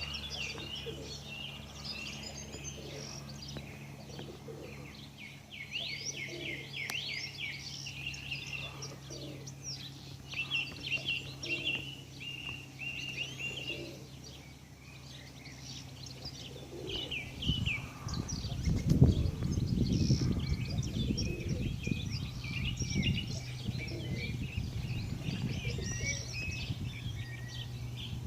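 Small birds chirping in many quick, high notes, over a steady low hum. About two-thirds of the way in, a louder low rumbling noise comes in and holds for several seconds.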